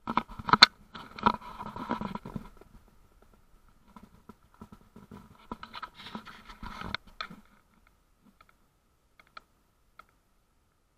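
Scratching and scraping handling noise close to the microphone in two spells, the first about two seconds long and the second about three, as the handheld camera is moved about; a few faint clicks follow near the end.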